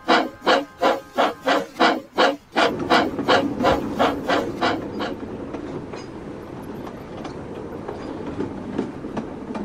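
Steam locomotive chuffing, about three puffs a second, loud at first and fading away after a couple of seconds into the steady rumble of a train running on the rails.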